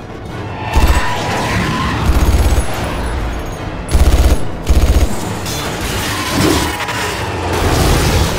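Film action sound mix: about four bursts of automatic rifle fire, each a quick run of shots, over a dense background of score.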